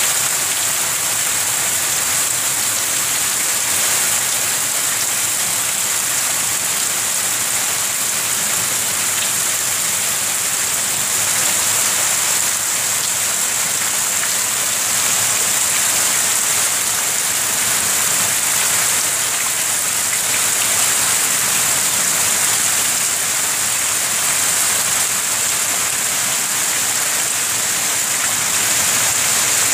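Heavy rain falling steadily on a flooded yard, a continuous even hiss of drops hitting standing water.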